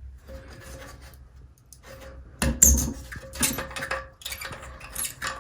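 Toilet tank handle being unscrewed from its reverse-threaded mounting nut and worked out of the tank: a run of sharp clicks and scrapes that starts a couple of seconds in.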